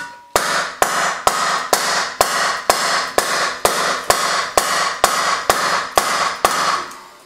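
Hammer blows on a log held against a black stove pipe, driving the pipe deeper into its mortared wall opening. About fourteen evenly spaced strikes, roughly two a second, each with a short ringing after it. They stop shortly before the end.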